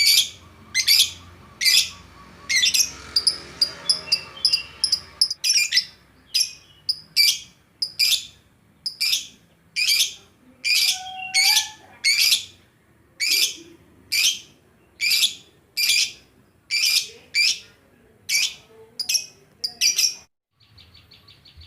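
A songbird repeating a loud, sharp chirping call over and over, about one to two calls a second. Near the end it cuts suddenly to a fainter, rapid, ticking trill.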